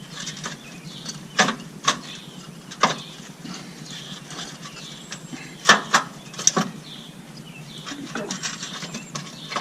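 A handful of sharp, irregular clicks and knocks: the air suspension compressor assembly being worked up and out of its mount after its three nuts have been loosened.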